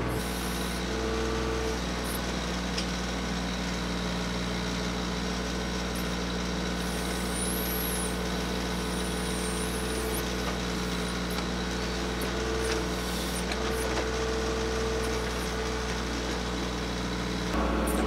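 Diesel engine of a TYM 2515 compact tractor running steadily under load while its BH150 backhoe digs out and lifts a root-bound stump. A higher whine comes and goes over the steady hum, and the low engine note shifts just before the end.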